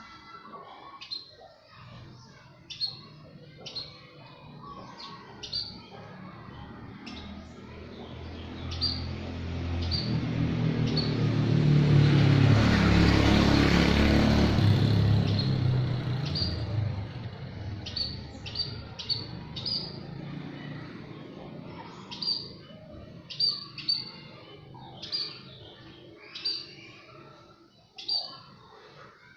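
Small birds chirping, a steady series of short, sharp chirps. Around the middle a passing motor vehicle swells up to drown them out and then fades away.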